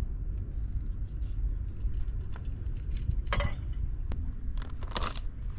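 Steady low wind rumble on the microphone, with scattered small clicks and two short rustles, about three and a half and five seconds in, as fishing tackle is handled.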